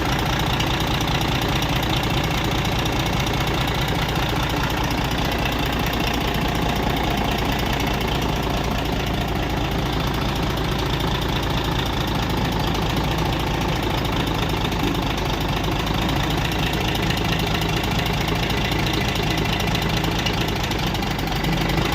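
Logging truck's diesel engine running steadily at idle.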